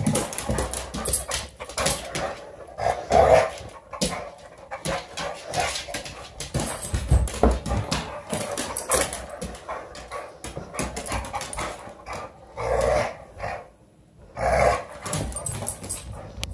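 A small dog growling and giving short barks in play, with louder outbursts about three seconds in and twice near the end. Scuffling and clicks on a hardwood floor run through it.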